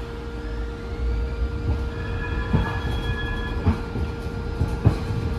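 Siemens LRV4 light rail car running, heard from inside the car: a steady low rumble with a constant hum, and a few sharp knocks about a second apart from the middle on.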